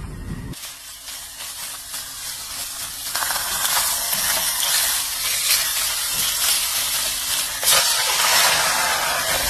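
Food sizzling in a frying pan. The sizzle grows louder about three seconds in, and there is a sharp tap near the end.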